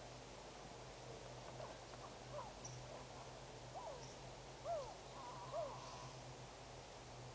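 A bird giving a series of short, arching whistled calls, the two loudest about four and a half and five and a half seconds in, over a steady hiss and low hum.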